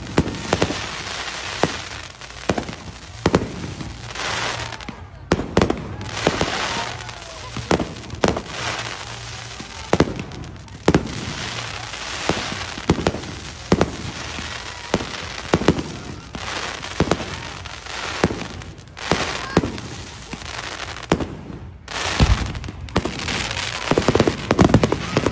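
Fireworks going off in quick succession: sharp bangs every half second to a second over continuous crackling, building to a dense volley near the end.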